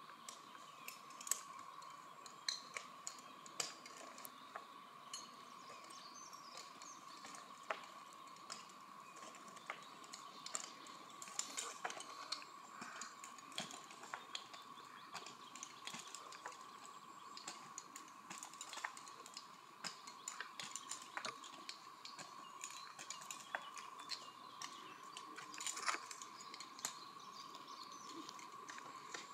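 Faint, irregular clicks and taps from a tree climber's spikes and metal climbing gear as he works his way up a tree trunk, over a faint steady high tone.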